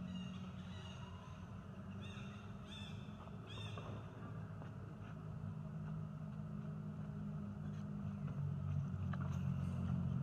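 Three short, harsh animal calls, each about a second apart, a couple of seconds in, over a low steady hum.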